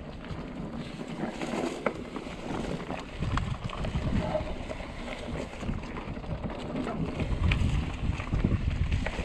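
Trek Remedy mountain bike ridden along a forest trail: wind buffets the action camera's microphone as an uneven low rumble, with scattered sharp clicks and rattles from the bike and the ground.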